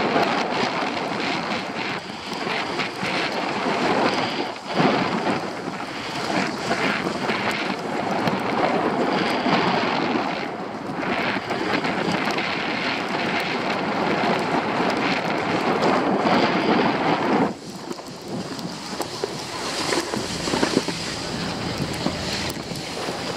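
Wind rushing over the microphone of a skier moving downhill, mixed with skis scraping over packed snow. It turns noticeably quieter about two-thirds of the way through.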